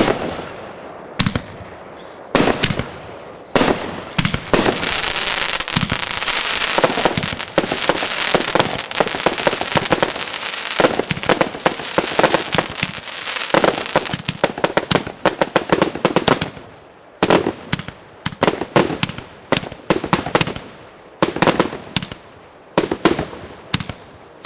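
Fireworks going off: sharp bangs and crackling. The crackle is dense and nearly continuous from about four seconds in, for about twelve seconds, then breaks up into separate clusters of quick bangs.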